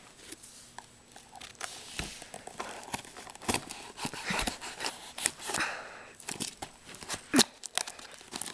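Scissors snipping at the tape and plastic of a cardboard toy box, mixed with rustling and sharp handling clicks of the cardboard and plastic packaging.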